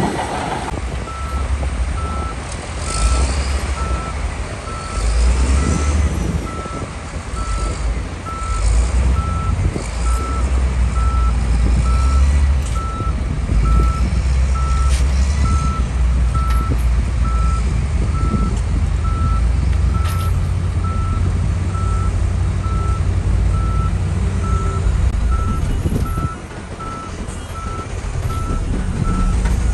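A heavy machine's back-up alarm beeping steadily at an even pace, starting about a second in, over the low rumble of its diesel engine, which rises and falls with load.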